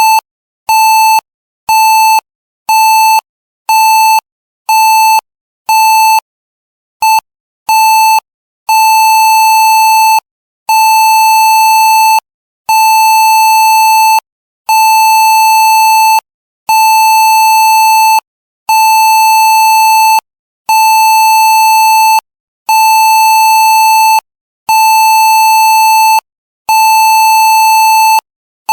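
Censor bleep: a steady, high-pitched beep tone switched on and off. For the first eight seconds or so it comes in short beeps about once every two-thirds of a second, then in longer beeps of about a second and a half separated by short gaps.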